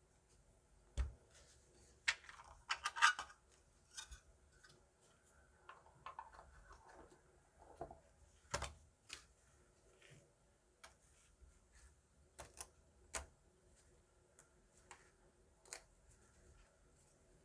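Hwatu cards handled and snapped down one after another, giving sharp irregular clicks and taps. There is a quick flurry of snaps about two to three seconds in, and softer shuffling in between.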